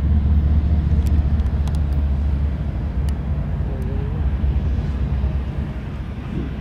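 Diesel engines of CSX freight locomotives running as the train rolls slowly along, a steady low drone that eases off in the second half, with a few faint clicks.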